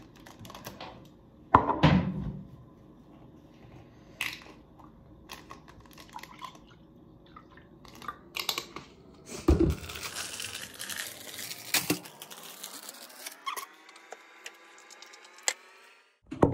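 Knocks and clinks of things handled on a counter, then juice poured from a glass bottle into a cup, the pouring rising steadily in pitch as the cup fills.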